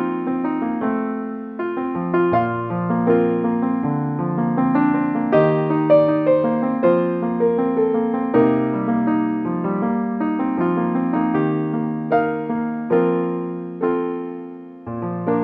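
Soft piano music: a slow melody of single struck notes over chords, with a low chord struck near the end and left to ring.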